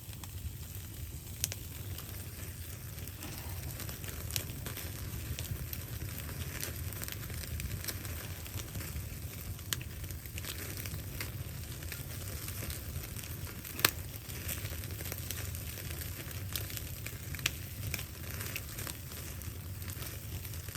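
Wood fire crackling, with scattered sharp pops, the loudest about 14 seconds in, over a steady low rumble.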